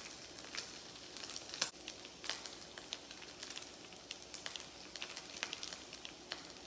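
Bacon sizzling and frying in a pan, a steady hiss with frequent sharp pops and spits of grease.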